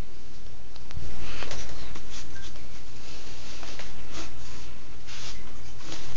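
Rustling and scattered light knocks from handling the camera and a siphon hose with a pipe on its end, over a steady low hum.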